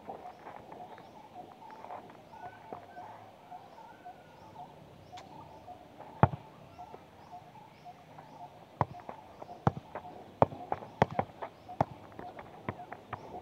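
Football being kicked and juggled: one sharp thud about six seconds in, then a run of touches on the ball, roughly one a second, in the second half. Birds call steadily in the background.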